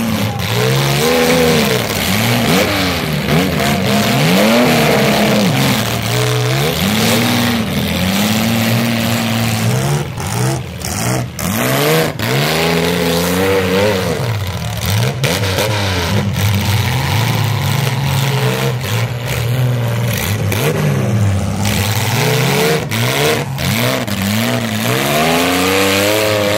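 Demolition-derby compact cars' engines revving up and falling back over and over, with more than one engine running at once.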